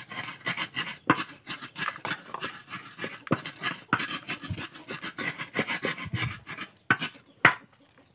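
A hand rubbing and squeezing a moist grated mixture with crumbled brown sugar in a plastic basin: a rapid run of gritty rustling strokes, several a second. The strokes thin out near the end, where there is a sharper click.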